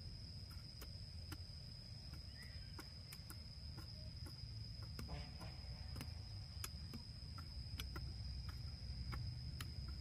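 Hand hoes chopping into loose, clumpy soil in irregular strikes, over a steady high-pitched insect trill.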